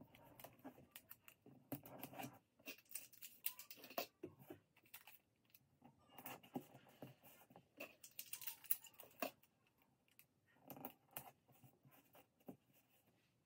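Faint rustling and small ticks of paper and sticky tape being handled as a pattern piece is positioned and taped down, coming in scattered clusters with quiet gaps between.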